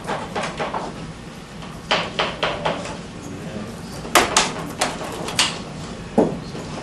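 Clusters of quick, light taps and clicks, four or five in a row, three times over, with a single duller knock near the end: a paste brush working along the ribs of a wooden mould for a paper lamp shade.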